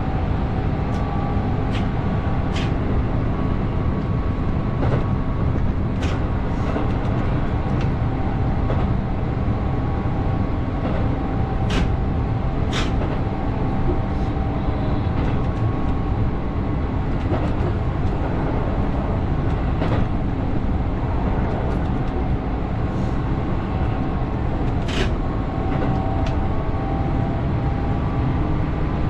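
Keihan 8000-series electric train running along the line: a steady rumble of wheels on rail, with faint whining tones that rise near the end and occasional sharp clicks.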